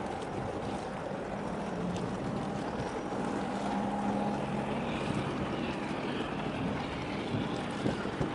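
A boat's engine running steadily, a low drone that grows a little stronger around the middle, with wind on the microphone.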